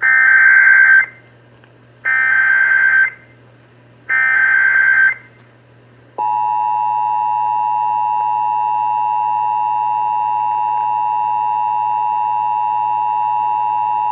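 Emergency Alert System tones over AM radio: three one-second bursts of the screechy SAME digital data header, two seconds apart. About six seconds in, the steady two-tone EAS attention signal begins, two tones together just under 1 kHz, and holds on. It signals that an emergency alert, here a severe thunderstorm warning, is about to be broadcast.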